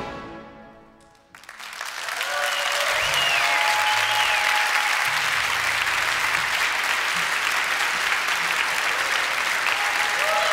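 The band's final chord dies away in the hall's reverberation. About a second and a half in, an audience breaks into applause, which then goes on steadily.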